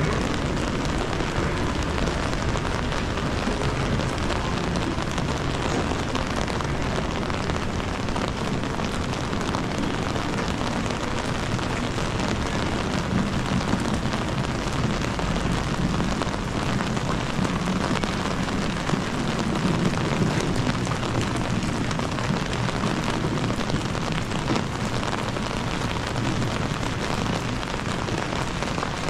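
Steady rain falling on a city street: an even, unbroken hiss, with a low city rumble underneath.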